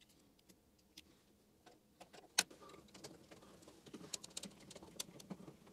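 Faint, scattered small clicks and handling noises of fingers fitting wire marker labels onto control wires, with one sharper click about two and a half seconds in and a cluster of light ticks near the end.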